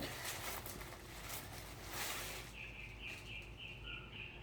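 Crinkling and rustling of a shipping package being handled and opened. About halfway through, a bird starts chirping in short, high notes repeated about four times a second.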